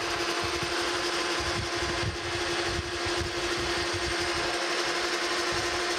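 Metal lathe running with its chuck spinning round bar stock, no cut being taken: a steady machine hum with one constant tone.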